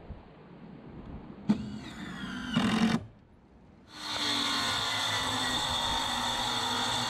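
A motor starts suddenly about a second and a half in, its whine rising in pitch, and cuts off abruptly about three seconds in. After a second's near silence, a steady machine hum with a high whine starts and keeps running.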